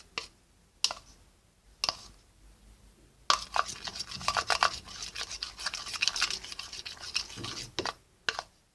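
A mixing spoon stirring and scraping glue slime in a container. There are two short single scrapes, then about four and a half seconds of continuous rapid scraping and ticking.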